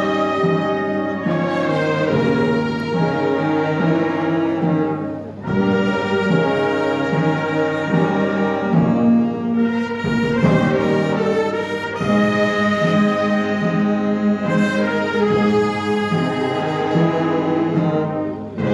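Brass band playing a slow funeral march in sustained, held chords. The phrases break off briefly about five seconds in and again near the end.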